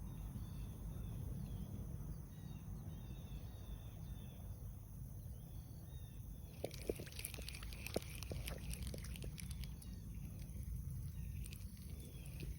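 Small birds chirping repeatedly in the background over a steady low wind rumble. From about halfway, a run of faint clicks and rustles.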